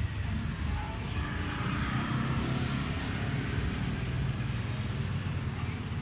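Street traffic: a steady low engine rumble, with a vehicle passing by, swelling and fading about two seconds in.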